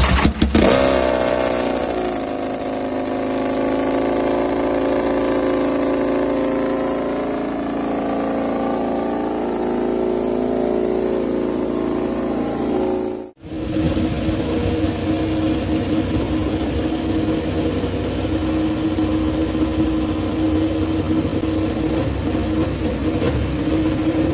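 KTM RC16 MotoGP bike's V4 engine fires up with a quick rev, then idles with its pitch wavering slightly. After a sudden cut about 13 seconds in, a steadier engine drone with more noise follows.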